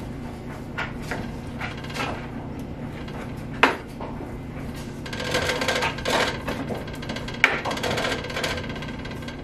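Kitchen knife chopping cooked chicken breast on a wooden cutting board: irregular knocks of the blade against the board. Two knocks, about four and seven and a half seconds in, are sharper than the rest.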